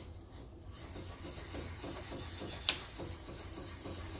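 Steel plane iron rubbed back and forth flat on a fine sharpening stone, a steady scraping as the back of the blade is polished flat. A brief sharp click about two-thirds of the way through.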